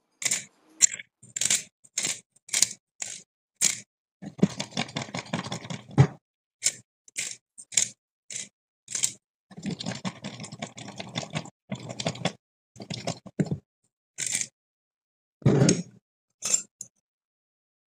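Hand-twisted metal spice grinder being turned in short twists, each a crunchy, rasping grind, with two longer stretches of steady grinding about 4 and 10 seconds in. Near the end there is a louder, deeper knock.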